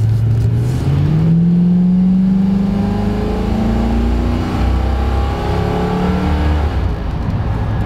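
Classic Range Rover's V8 accelerating hard, heard from inside the cabin. The engine note climbs steadily for a few seconds, drops back about five seconds in, and climbs again.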